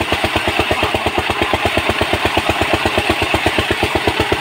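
Power tiller's single-cylinder diesel engine chugging steadily at about nine beats a second while driving a home-made water pump, with the hiss of water gushing out.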